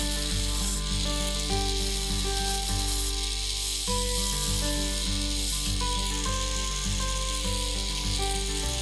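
Background music with a melody of changing notes, over the hiss of sandpaper held against a wooden goblet stem spinning on a lathe.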